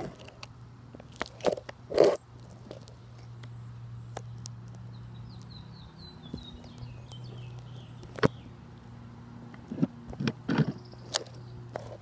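A steady low hum with scattered clicks and taps, the sharpest about two and eight seconds in, and a faint run of high, falling chirps in the middle.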